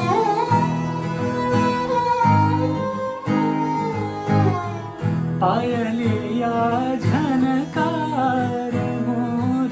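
Acoustic guitar strumming chords under a sarangi's bowed melody, which is held long and wavering at first. From about halfway, a man's voice joins, singing a wordless line that bends in pitch: the opening of a Hindustani classical bandish.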